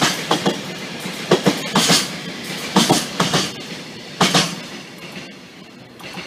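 Container freight train passing at speed, its wheels clacking over the rail joints in repeated groups over a steady rumble. The last clacks come about four seconds in as the final wagon passes, then the rumble fades away.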